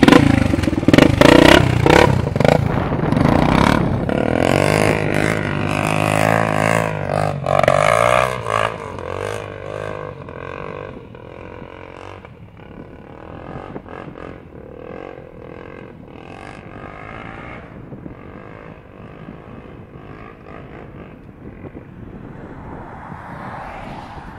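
Off-road motorcycle engine revving hard, its pitch rising and falling as it pulls away. After about ten seconds the sound grows fainter and steadier as the bike moves off into the distance.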